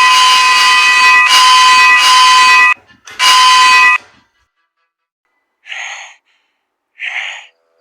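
Loud, harsh buzzing alarm-like sound effect, cutting off about three seconds in, sounding once more for under a second, then two short blasts a little over a second apart near the end.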